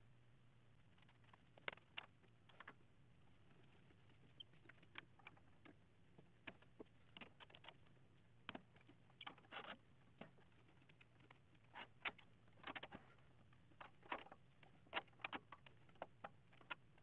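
Scattered light clicks and taps from hands handling a wooden bowl blank and the lathe chuck while the workpiece is taken off and remounted, over a faint steady low hum.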